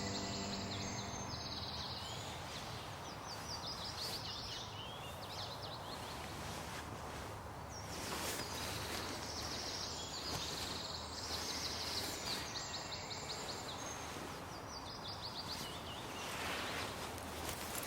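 Outdoor ambience with a bird singing short, quick, high trilled phrases over and over against a steady background hiss. A few held music tones fade out about a second in.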